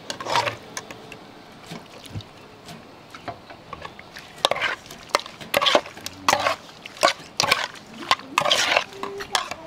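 Boiled mushroom pieces tipped wetly from a wire strainer basket into an aluminium pot, then a metal spoon tossing them through a wet dressing, scraping and clinking against the pot's side in quick strokes, about two a second, over the second half.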